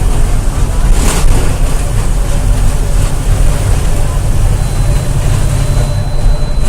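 Mercedes-Benz bus wheels running at high speed with a loud, steady low rumble. This is the wheel-bearing noise that the recordist calls a typical wheel-bearing problem, harmless to the bus. A brief knock comes about a second in, and a faint, steady high whine joins about two-thirds of the way through.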